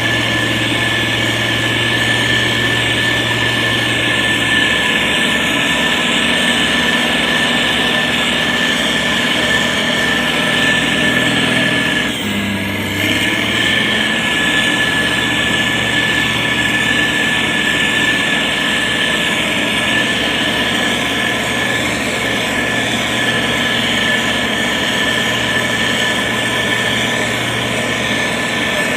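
Diesel engine of heavy road-construction machinery running steadily, with a steady high whine over the engine note. The sound dips briefly about twelve seconds in.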